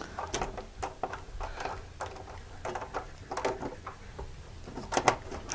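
Screw being turned by hand with a screwdriver into a plastic wall anchor, through the bracket of a sheet-metal rain head: irregular small clicks and scrapes, with a few louder ones about five seconds in.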